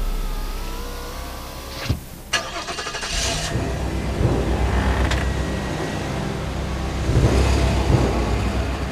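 A car engine runs and the car pulls away, a low rumble that grows louder later on. Two sharp clicks come about two seconds in.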